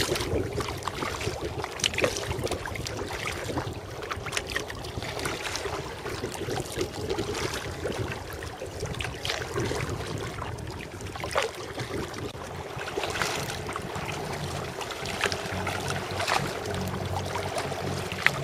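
Sea kayak being paddled: double-bladed paddle blades dipping into the sea, giving irregular short splashes and drips over a steady wash of water.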